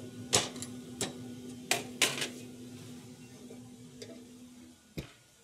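Beef ribs set down on the steel grates of a pellet smoker: a handful of sharp metallic clinks and knocks in the first two and a half seconds, over a steady low hum. A single heavier thump comes near the end, just as the hum stops.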